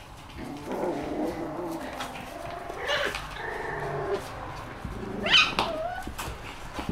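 Shiba Inu puppies play-fighting, with small wavering growls and whines and two sharp, high-pitched yips, about three seconds in and about five and a half seconds in, the second the loudest.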